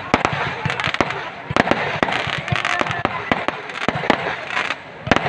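Fireworks and firecrackers going off in a rapid, dense string of sharp cracks and bangs over a crackling hiss, with a short lull near the end before the bangs start again.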